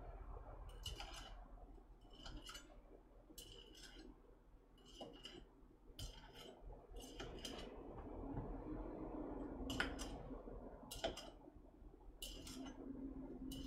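Kitchen knife clicking against a cutting board as Frank sausages are scored: light, sharp clicks, mostly in pairs, about once a second.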